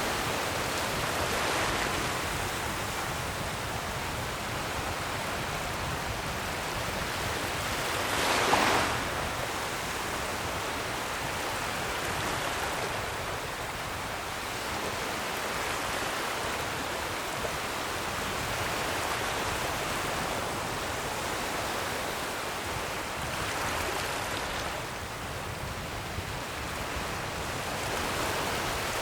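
Ocean waves breaking and washing on a shore: a steady surf hiss with swells as waves come in, the strongest crash about eight seconds in.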